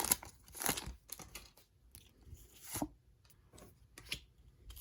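Pokémon card booster pack being opened by hand: short crinkles and tears of the foil wrapper and rustling of the cards, a handful of separate brief rustles with quiet between.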